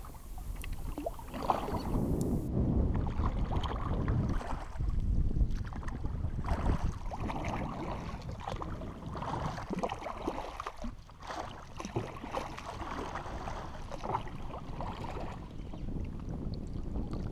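Paddle strokes splashing in the water as a narrow canoe is paddled along, with water lapping at the hull and wind rumbling on the microphone.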